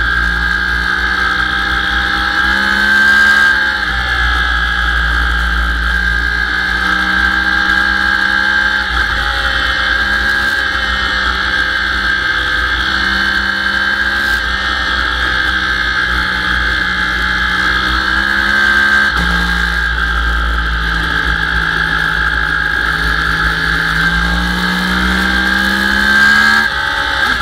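Sport motorcycle engine running hard, its pitch climbing steadily and dropping sharply at each gear change, several times over, over steady noise.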